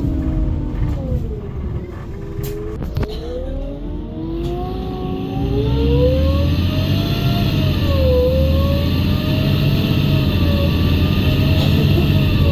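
City bus drivetrain, an FPT Cursor 9 natural-gas engine with a ZF EcoLife automatic gearbox, whining lower as it slows, then kicking down about two and a half seconds in. The whine then climbs and the bus grows louder under hard acceleration, with the pitch dipping briefly at an upshift about eight seconds in.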